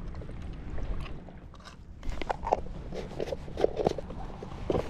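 Irregular small clicks and crunching handling noises, likely from a shredded Gulp soft bait being pulled off a fishing hook, over a steady low hum.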